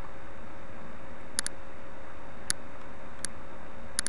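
Computer mouse button clicks: a double click about one and a half seconds in, then single clicks less than a second apart, over a steady hiss.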